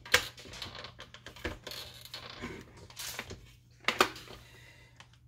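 Scattered small clicks and knocks as the beaters are fitted into a small electric hand mixer and set into a stainless steel mixing bowl, with a sharp click about four seconds in. The mixer is not yet running.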